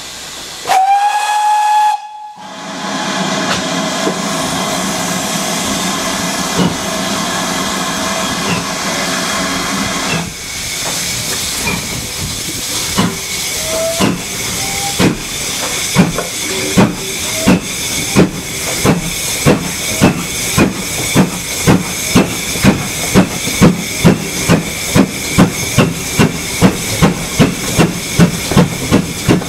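Steam locomotive whistle blows once, with a quick rise in pitch and a sudden stop, then steam hisses steadily. After about ten seconds the locomotive pulls away, its exhaust chuffs building into a regular beat of about two a second that grows louder.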